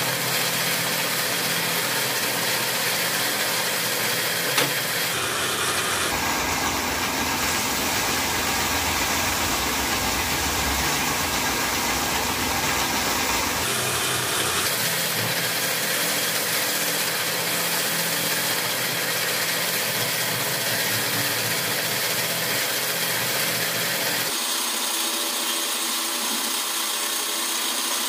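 Belt-driven copy lathe running steadily while a fine file, and later a cloth, is held against a wooden timbale drumstick spinning in it to smooth it. The sound changes abruptly three times in tone.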